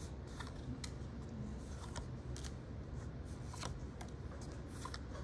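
Pokémon trading cards being handled and sorted by hand: a few scattered light clicks and flicks of card stock over a low steady hum.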